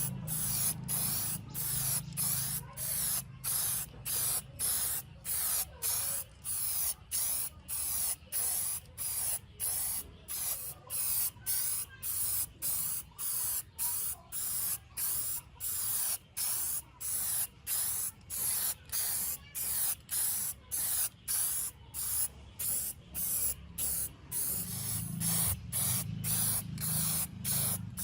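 Spray paint hissing in short, even bursts, about two a second, as a restored part is sprayed. A low hum sits underneath at the start and again near the end.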